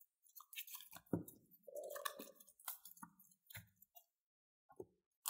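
Faint handling noises from a phone box's contents, with scattered light clicks and brief rustles as the packaging, papers and accessories are moved about.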